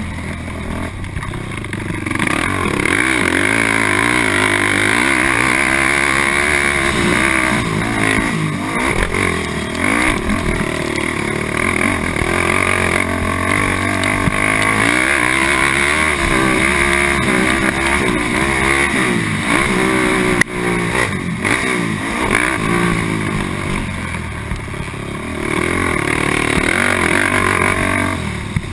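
Honda TRX450R quad's single-cylinder four-stroke engine revving hard under racing load. The pitch climbs and drops again every second or two as the rider works the throttle through the gears.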